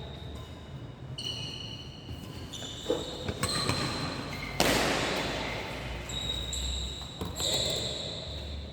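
Badminton play in a hall: sports shoes squeaking on the court floor in short high squeals, with sharp racket strikes on the shuttlecock and one louder, noisier hit about halfway through.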